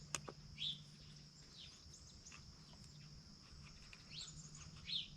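Faint bird chirps, short falling calls about once a second, over a steady high tone and a low hum. A couple of light clicks come just after the start.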